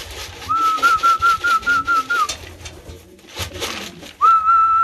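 A person whistling to call racing pigeons in to the loft: a long warbling whistle in the first half and another steady whistle note starting near the end, with pigeons cooing low underneath.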